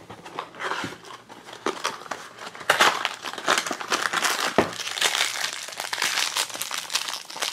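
Small cardboard blind box being pulled from its display case and torn open by hand: irregular crinkling and tearing, busier from about three seconds in.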